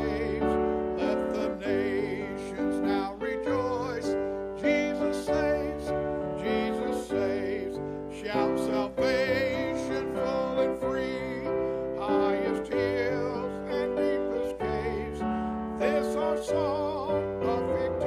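A hymn sung with wide vibrato over a Roland digital piano accompaniment.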